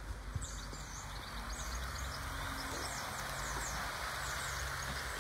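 Small garden birds chirping, a quick run of short high notes, over a steady hiss and low hum.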